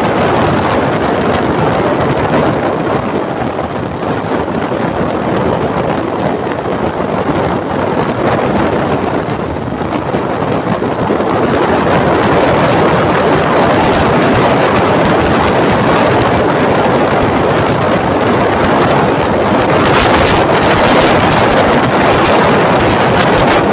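Wind rushing over the microphone of a motorcyclist riding at speed, mixed with road and engine noise. A loud steady rush that eases a little twice in the first half.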